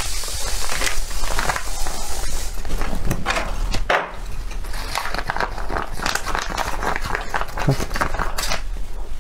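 Plastic food pouch crinkling and rustling in the hands as it is squeezed and shaken, with sauced enoki mushrooms sliding out onto a plate.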